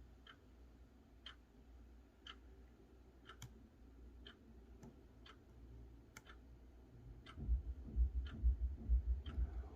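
Faint, even ticking, about once a second. A few low thumps come in near the end.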